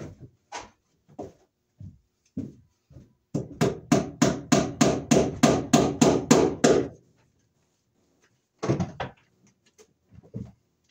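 Hammer driving cable staples into a wooden floor joist overhead: scattered light knocks, then a fast run of about a dozen blows, roughly four a second, lasting some three and a half seconds. A few more knocks follow near the end.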